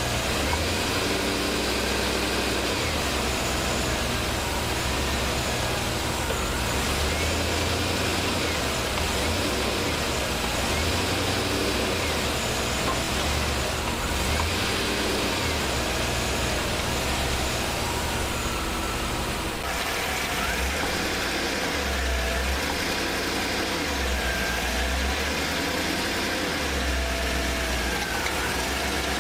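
Chevrolet Tahoe PPV's 5.3-litre V8 running while held in gear on the brake, with gas applied several times so its low note swells and eases.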